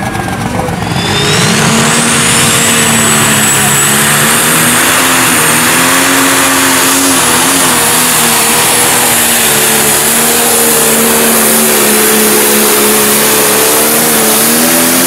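Pro stock pulling tractor's turbocharged diesel engine at full throttle, hauling the sled down the track. The engine note is steady, with a high turbo whistle that climbs in pitch about a second in as the run begins.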